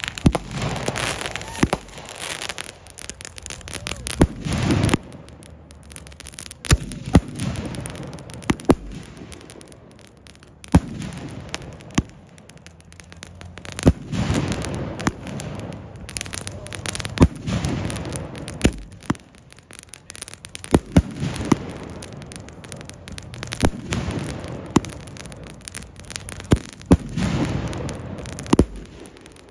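Believe 'Bigfoot' 25-shot salute cake firework firing: tubes launching shells one after another, each ending in a sharp bang overhead, about one shot every second or so, with low rumbling swells between them.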